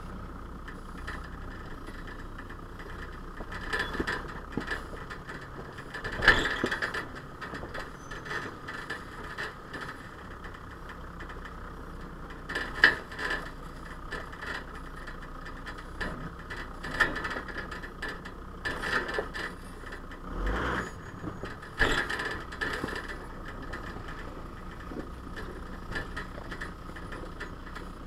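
Four-wheel-drive vehicle's engine running at low speed on a rough rocky track, with repeated knocks and rattles from the body, suspension and load as the tyres go over stones. The loudest bangs come about six and thirteen seconds in.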